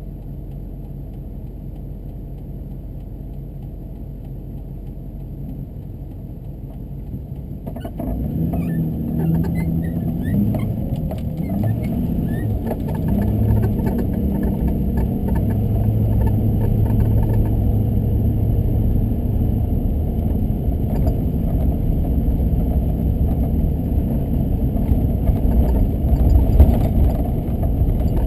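Car driving on snowy streets: low engine and road noise, growing louder about eight seconds in as the engine pitch rises and falls, then running steadily.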